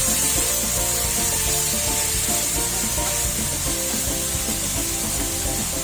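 Beef strips with onion, bell pepper, ginger and garlic sizzling steadily in hot oil in a pan as they are stir-fried.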